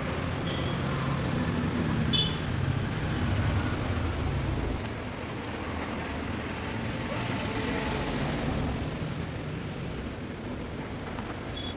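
A vehicle engine running with a steady low rumble, with a short sharp click about two seconds in.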